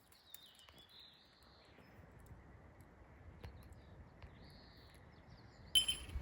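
A few faint bird calls, short chirps, over quiet outdoor background, with a sudden louder noise near the end.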